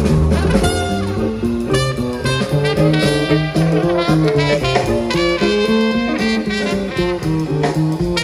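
Jazz music, with horns playing a melody of short notes over a stepping bass line.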